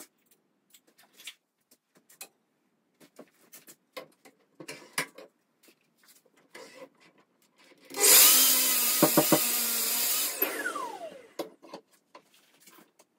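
Sliding mitre saw cutting through an oak board: a few wooden knocks as the board is positioned, then about eight seconds in the saw motor starts and the blade cuts for about two seconds. The motor then winds down with a falling whine.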